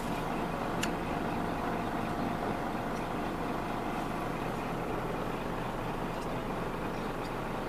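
Scania P 380 truck's diesel engine running steadily, heard from inside the cab, with one light click about a second in.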